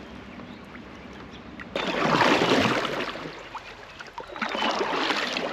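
Kayak paddle strokes splashing in the river: a sudden stroke about two seconds in and another building near the end, over a faint steady rush of flowing water.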